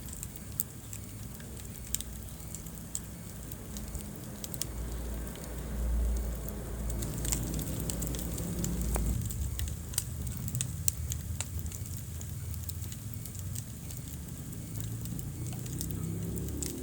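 Wood fire burning in a fireplace: a low rumble of flames with sharp crackles and pops scattered irregularly throughout, swelling briefly about six seconds in.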